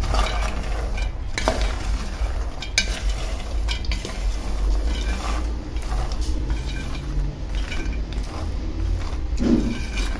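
Peanuts in their skins being stirred in a dry pan with a spoon: an irregular rattling clatter of nuts tumbling and scraping against the pan. The nuts are nearly roasted, and the sound they make is one of the cook's signs of doneness.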